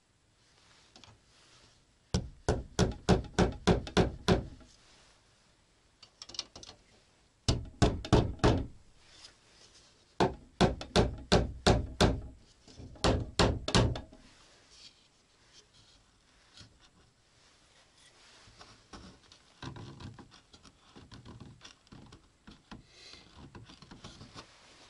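Hammer tapping rapidly on wood, about four or five strikes a second, in four runs of one to two seconds each with pauses between; faint scattered rustling follows in the second half.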